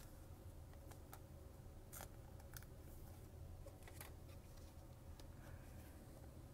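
Near silence with a few scattered faint clicks of Topps Chrome trading cards being handled and shuffled in the hand.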